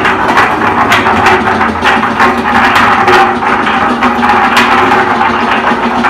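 Suncoo 5 cubic foot cement mixer with a 4/5 horsepower electric motor running empty on its first start-up. It makes a loud, steady hum under a constant, uneven clatter of metallic knocks from the turning drum and drive.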